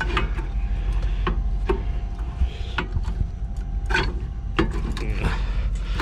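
Metal brake parts scraping and knocking as a stuck brake component is worked loose by hand: irregular clunks, about seven in all, over a rubbing, grinding scrape.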